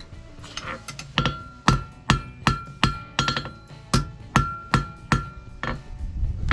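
Blacksmith's hammer striking steel on an anvil in a steady run of blows, about two and a half a second, each leaving a short metallic ring.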